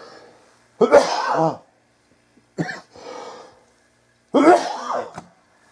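A person coughing and clearing the throat three times, in short harsh bursts.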